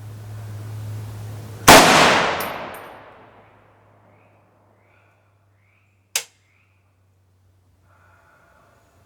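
A single shot from a Riley Defense RAK-308C, an AK-pattern rifle in .308 Winchester, about two seconds in, very loud and echoing away over a second and a half. About six seconds in comes one short, sharp click.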